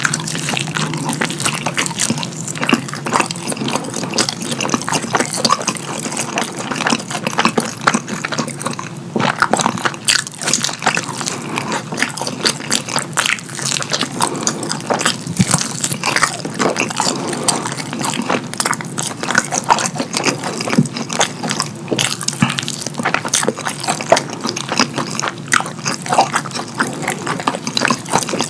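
Close-miked wet chewing and lip-smacking of fried chicken coated in cheese sauce: a steady run of sticky, squishy mouth clicks and crackles.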